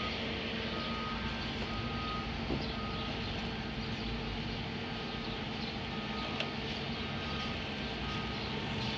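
An engine running steadily with a constant hum, and short high-pitched beeps sounding on and off over it, like a vehicle's warning or reversing alarm.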